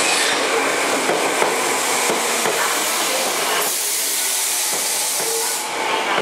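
Tokyo Metro 05N series electric train rolling past, wheel and track noise throughout. A loud hiss starts about three and a half seconds in and stops about two seconds later.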